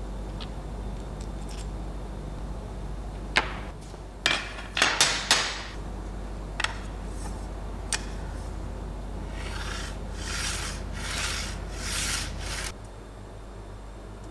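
Small metal parts clicking and clinking as a roller bracket is handled and fitted, then the little roller carriage sliding back and forth along an aluminium bar, about five rubbing swishes.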